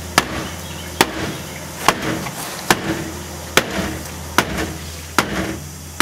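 An axe striking the solid wooden door panel of a KitchenAid Superba dishwasher seven times, roughly one sharp chop a second, chipping into the wood. A steady low hum runs underneath.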